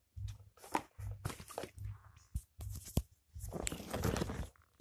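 Handling noise close to the microphone: irregular rustling, crackling and knocks, with a sharp click about three seconds in and a longer rustle near the end as the webcam is moved.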